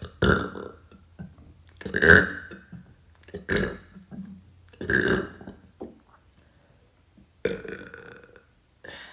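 A woman burping repeatedly: six short belches, spaced about one and a half seconds apart, with quiet gaps between them.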